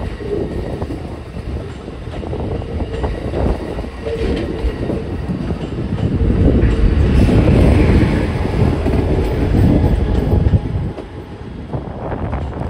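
Amtrak Cascades passenger train rolling past close by: steel wheels rumbling on the rails as the coaches go by, loudest about halfway through, with the trailing Siemens Charger locomotive passing near the end.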